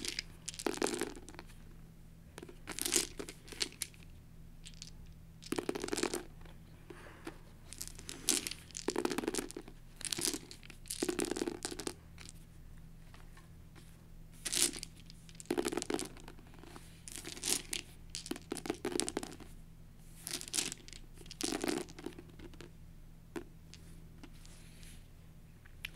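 A handful of plastic six-sided dice, scooped up, rattled in the hand and tossed onto a paperback book cover again and again, clattering and skidding to a stop in short bursts every second or two. A faint steady hum lies underneath.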